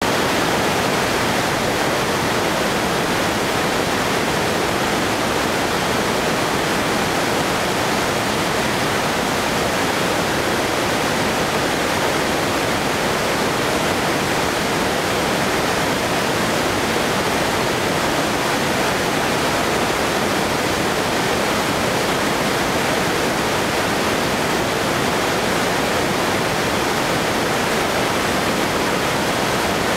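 Whitewater of the Rogue River churning through a narrow dark-rock channel: a loud, steady rush of water that does not change.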